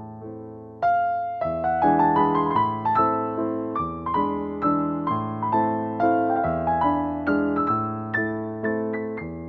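Background piano music: a gentle melody of single notes and chords struck a couple of times a second, each fading away. It steps up in loudness about a second in.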